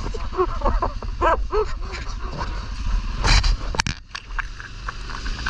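A dog barking several short times over the low rumble of an idling ATV engine. Two sharp knocks follow a little past the middle.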